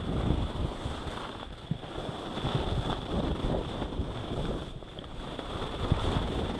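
Skis sliding and scraping over chopped, packed snow with an uneven low rumble, mixed with wind buffeting the camera's microphone.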